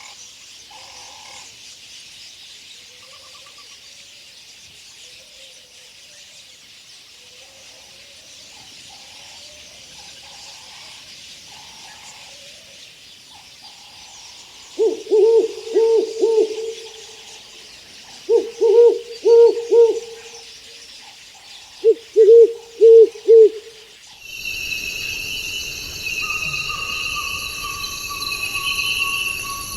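A bird giving low hoots in three short bouts of three or four quick notes each, a few seconds apart, over a faint chorus of high jungle calls. Near the end the sound switches abruptly to loud, steady high buzzing, joined by a long, slowly falling whistle.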